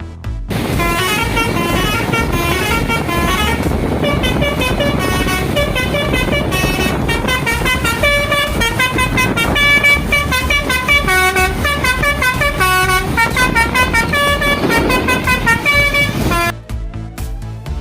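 Tourist bus 'telolet basuri' musical air horn playing a long, fast tune of stepped notes over a rushing background noise. It starts about half a second in and cuts off sharply near the end.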